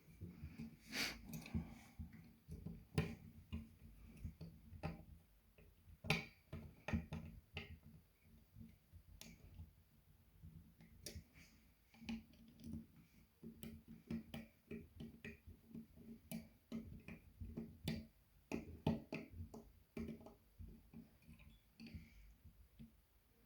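Irregular light clicks and taps, several a second and uneven in spacing, over a faint steady low hum.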